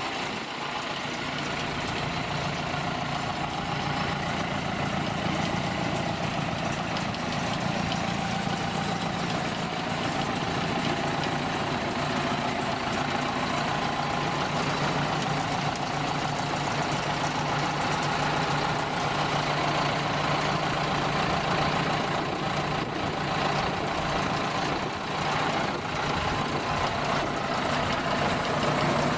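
Jansen BX-62RS tractor-driven wood chipper and the tractor engine powering it, running steadily with a constant low hum.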